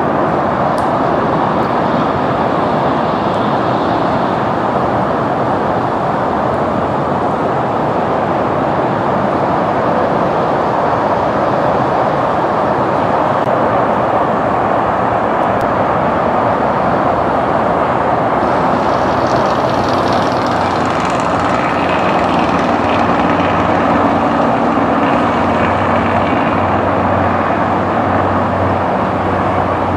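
A commercial jet airliner landing: a steady, loud wash of engine and background noise, with a jet-engine whine and low hum joining in about two-thirds of the way through as the plane rolls out on the runway.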